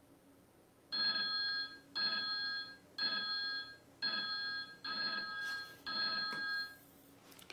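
Countdown timer on an interactive whiteboard beeping through its final seconds: six electronic beeps, one a second, each about three-quarters of a second long.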